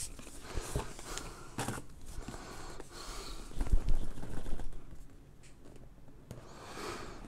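Cardboard headphone box being handled and slid open: soft rubbing and scraping of cardboard against cardboard and hands, with a few light taps, louder for about a second a little past halfway.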